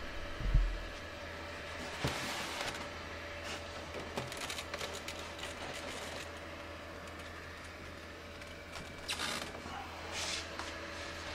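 Plastic egg turner being lifted out of a foam incubator: brief scraping and knocking of plastic at about 2 seconds, a run of small knocks and rustles a few seconds later, and two short scrapes near the end. A steady low hum from the running incubator sits under it.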